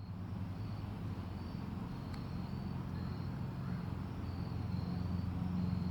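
Crickets chirping in short, repeated high trills over a steady low hum.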